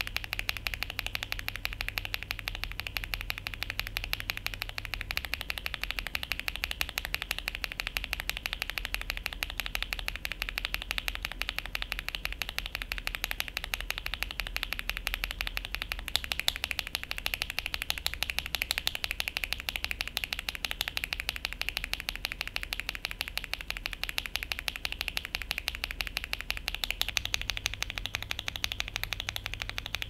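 Fast, continuous typing on a Tester68 mechanical keyboard with linear switches lubed with Krytox 205g0, a dense run of key strikes. The switch model changes about 5, 16 and 27 seconds in: KTT Cloud Blue, then Akko CS Radiant Red, Akko CS Rose Red and KTT Strawberry.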